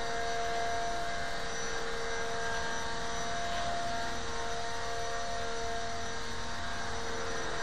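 Small radio-controlled aircraft flying, its motor and rotors making a steady whine with several held pitches.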